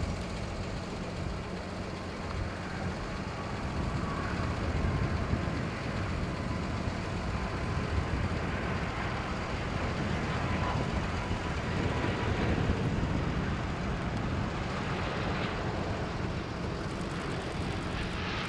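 Airbus A330-300 airliner on final approach, its two Rolls-Royce Trent 700 turbofans running at approach power: a steady jet roar with a faint whine, growing louder about four seconds in as the aircraft nears.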